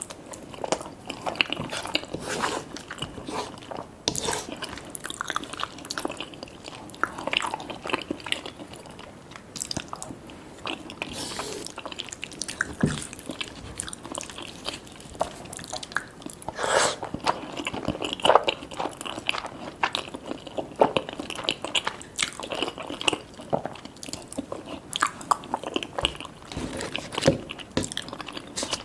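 Close-miked eating sounds of a mouthful of cheese lasagna and garlic butter toast: chewing and biting with many irregular crunches and wet clicks.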